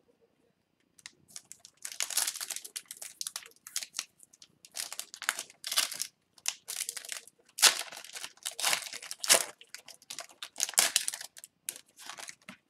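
Foil wrapper of an O-Pee-Chee Platinum hockey card pack crinkling and tearing as it is ripped open by hand, in repeated bursts of crackling from about a second in.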